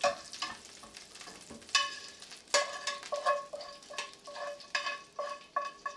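Metal utensils scraping and knocking inside an All-Clad stainless steel sauté pan, about a dozen strikes, each leaving the pan ringing briefly, as browned garlic bits are gathered from the oil.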